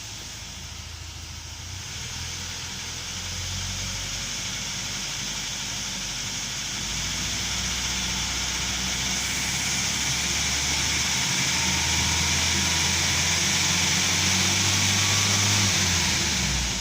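UAZ Patriot running, its steady engine and vehicle noise building gradually over about fifteen seconds, then easing off near the end.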